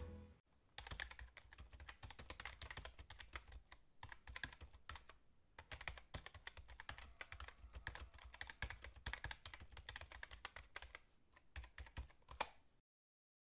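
Typing sound effect: rapid, irregular keyboard key clicks, faint, cutting off suddenly near the end.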